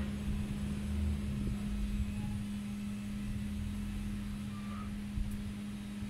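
Pole chainsaw running at a steady, unchanging pitch. Its bar oil seems not to be feeding, and the chain is scorching from the lack of oil.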